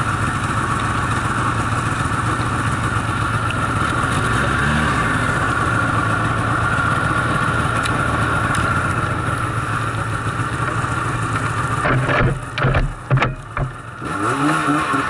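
Snowmobile engine running steadily under way, heard close up from the rider's own sled. About twelve seconds in the sound breaks up for a couple of seconds, dipping sharply with a few knocks, then the engine comes back with its pitch rising.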